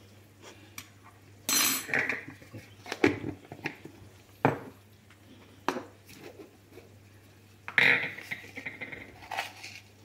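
A metal spoon clinking and tapping against an enamel pot and cups while salt and ground paprika are spooned out, with containers being handled. It comes as a string of separate clinks and knocks, loudest about a second and a half in and again near eight seconds.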